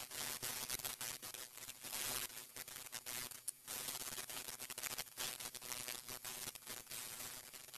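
Sandpaper rubbed by hand over a wooden part: a scratchy rasp in quick, uneven back-and-forth strokes as the sharp edges of the wood are rounded off.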